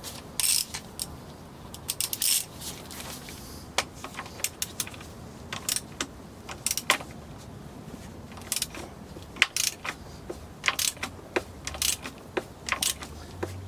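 Irregular metallic clicks and clinks from hand tools on engine parts as bolts on the balance shaft timing chain assembly are tightened.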